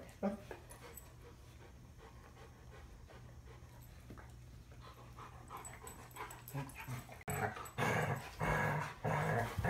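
Two dogs play-fighting: quiet for the first several seconds, then low play growls and grumbles in repeated bursts from about eight seconds in, as they mouth at each other.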